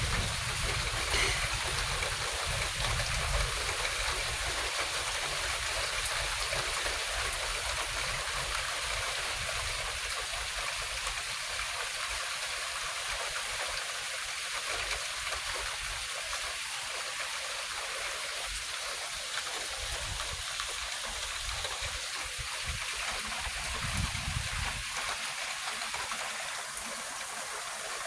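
Steady rain falling, an even hiss with no distinct drops or thunder.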